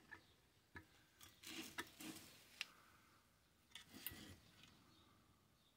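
Near silence broken by a handful of faint clicks and light scrapes from handling a fare box's metal parts with a screwdriver. The sharpest tick comes about two and a half seconds in, and a short cluster follows around four seconds.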